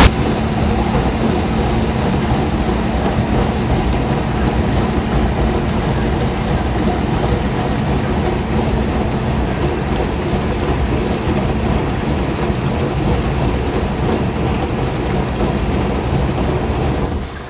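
Dishwasher running its wash cycle: water spraying against the inside of the tub over a steady pump hum.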